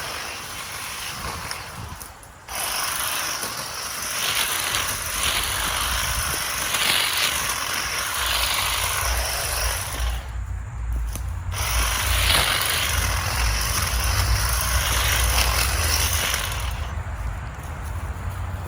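Ryobi One+ 18V cordless hedge trimmer running, its reciprocating blades cutting through brush, stopping briefly twice: about two seconds in and again around the middle.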